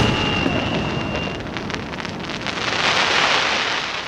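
Fireworks crackling: a dense rain-like patter of many small pops that swells again about three seconds in, with a high whistle that stops in the first second and a half.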